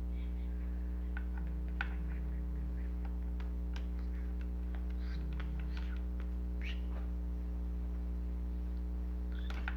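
A steady low electrical hum, with faint scattered clicks and a few short chirps over it.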